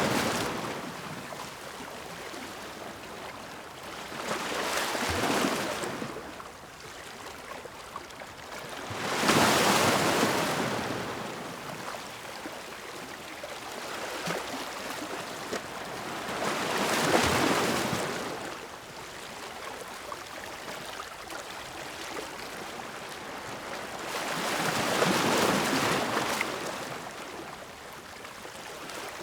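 Ocean waves crashing: a surge of surf noise swells and dies away every several seconds, four times after an opening one fades, the loudest about nine seconds in.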